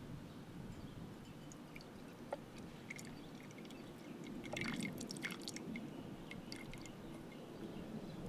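Hydraulic fluid poured in a thin stream into a stainless steel pot: faint trickling with scattered small drips and ticks, a little louder about halfway through.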